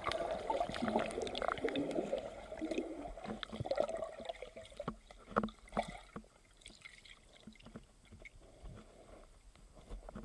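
Water heard through a submerged camera as a spearfisher dives in a river: bubbling and gurgling with many sharp clicks for the first four seconds or so, then quieter, muffled underwater sound with scattered clicks.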